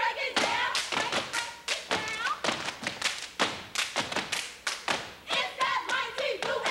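A step team stepping on a stage floor: fast, tightly rhythmic foot stomps and hand claps, several sharp hits a second. Voices call out briefly near the start and again about five seconds in.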